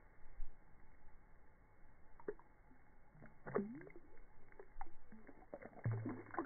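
Muffled, quiet sloshing and small splashes of shallow lake water as a released largemouth bass swims off, with a few faint clicks.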